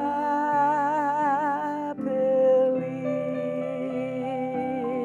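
A singer holding long notes with vibrato, a higher note and then a lower one from about two seconds in, over instrumental accompaniment.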